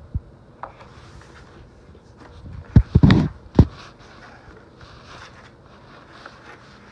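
Paper art prints and a booklet handled and shuffled on a table, with light rustling and a few sharp thumps about three seconds in.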